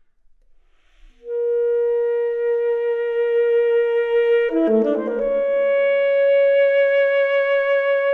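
Film score: a solo woodwind comes in about a second in on a long held note, plays a quick flurry of notes midway, then settles on a slightly higher held note.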